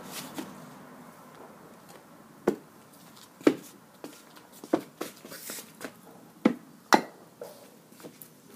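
Footsteps in slippers on wooden decking close to the ground: about six sharp knocks roughly a second apart, the loudest about halfway through and again near the end.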